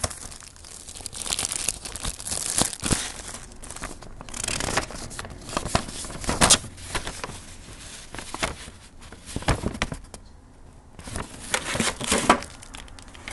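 Clear plastic clamshell packaging and a paper recipe sheet crinkling and crackling as they are handled, in irregular bursts with a short lull about ten seconds in.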